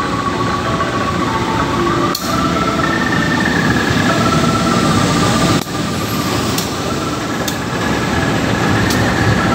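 Passenger train pulling into a station: the diesel locomotive passes, then its carriages roll by, making a loud steady rumble with a few sharp clacks from the wheels on the rails.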